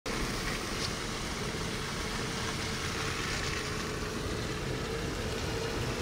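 Steady road and tyre noise heard from inside a moving car, with a faint steady hum underneath.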